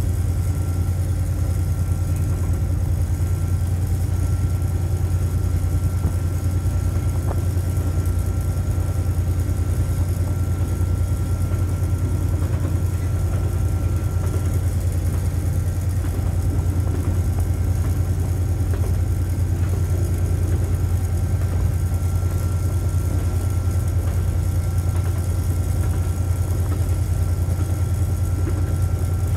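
Steady drone of an EMD G12 diesel-electric locomotive's 12-cylinder, two-stroke EMD 567 engine, heard from inside the cab while the train is moving along the line.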